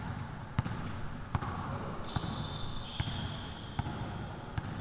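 Basketballs bouncing on an indoor court floor, a sharp bounce every half-second to second. About halfway through come high, drawn-out squeaks of sneakers on the court.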